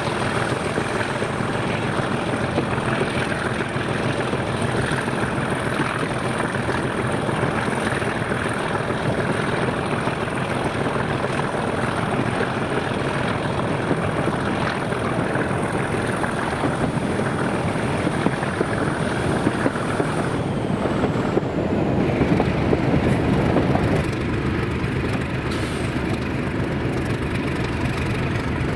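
Diesel locomotive engine running steadily with a low throb and a high whine. The whine dies away with a falling glide about twenty seconds in, and the engine note swells for a couple of seconds shortly after.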